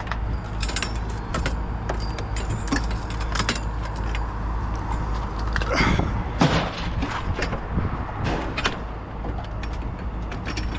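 A vehicle running with a steady low rumble, with frequent rattles and knocks over it and a louder clatter about six seconds in.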